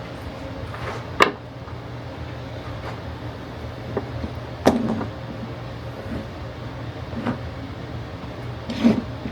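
Bar clamps and wooden clamping cauls being handled and set on a glued-up board: three sharp wooden-and-metal knocks, about a second in, near the middle and near the end, with lighter clicks between, over a steady low hum.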